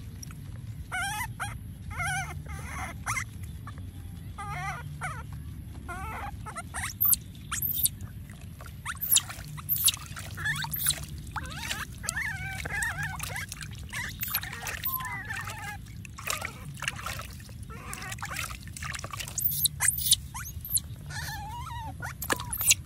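Baby monkey giving repeated high-pitched squeals and cries while being bathed, with water splashing and trickling in a plastic basin.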